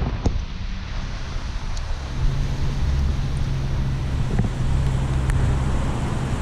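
Car driving on a wet road in the rain: a steady hiss of tyres on wet pavement over a low engine hum that firms up about two seconds in, with a few faint ticks.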